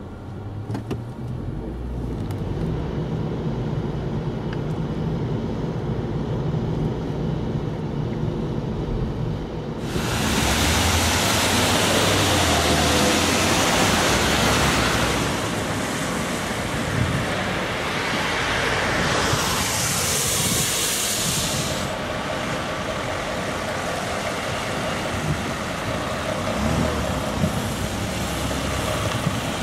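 Road traffic: a low, steady vehicle engine hum for about the first ten seconds, then from about ten seconds in louder passing traffic with a steady rushing road noise, and a brighter hiss for a few seconds around the twenty-second mark.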